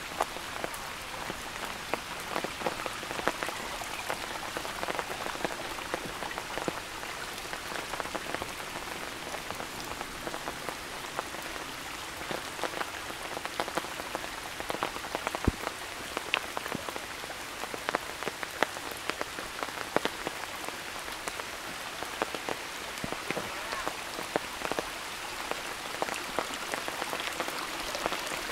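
Steady rain falling, with many sharp taps of individual drops landing close by.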